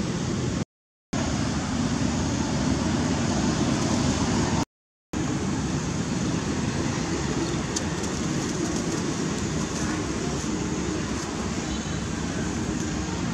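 Steady rushing background noise that cuts out to silence twice, just under a second in and at about five seconds in.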